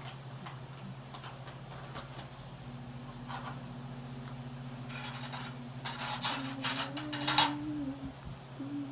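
Crinkly rustling of a drape sheet being shaken out and unfolded, in several bursts over a few seconds and loudest near the end, over a low steady hum.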